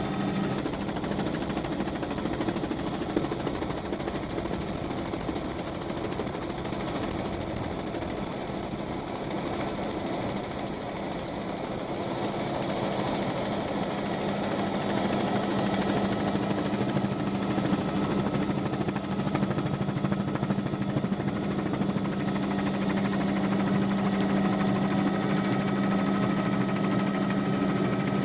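Helicopter engine and rotor running steadily, heard from on board: a constant low hum with a thin high whine above it.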